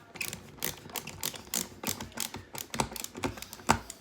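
Irregular clicks, taps and clatter of small hard parts and tools being handled, several a second.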